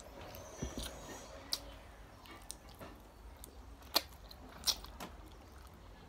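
A person eating fried chicken close to the microphone: chewing and wet mouth smacks, with scattered sharp clicks, the loudest two about four seconds in and a moment later.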